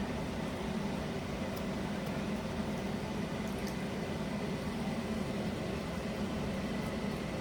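Pot of ogbolor soup boiling on the stove: a steady low rumble, with a few faint light ticks.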